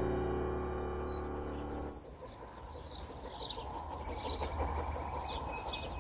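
A piano chord dies away over the first two seconds. Then insects trill steadily, with a few short, high chirps over them.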